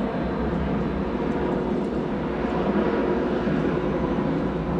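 Jet engines of a climbing rear-engined twin-jet airliner, a steady, even roar at takeoff-climb power.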